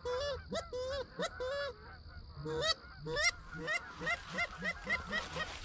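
Canada geese honking: a run of loud, separate honks, then from about three seconds in a quicker, fainter series of honks at roughly four or five a second.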